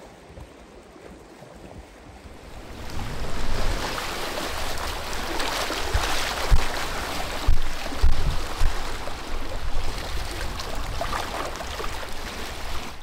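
Lake waves washing and splashing over smooth granite shore rock, getting loud about three seconds in, with a few low thumps among the surf.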